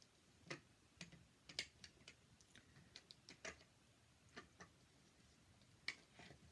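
Faint, irregular clicks and taps of small toy cars being picked up, shuffled and set down as they are rearranged into a colour pattern.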